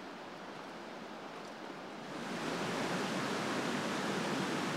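Steady rushing of a waterfall, which grows louder about two seconds in.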